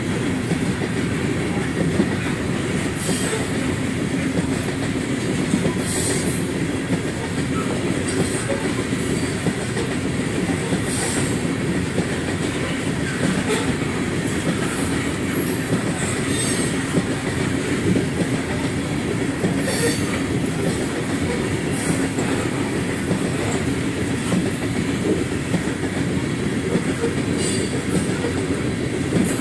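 Freight train cars rolling past at a steady pace: a continuous low rumble of steel wheels on rail, with short high-pitched wheel squeals at irregular intervals every few seconds.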